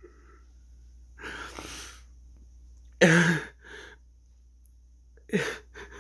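A man crying: a long shaky breath about a second in, then a loud sob about three seconds in, the loudest sound here, followed by a short gasp, and another sob near the end.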